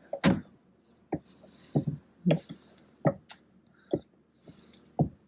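About ten sharp, irregular clicks and knocks of tools and parts being handled during a short-shifter install, with brief rustling between them.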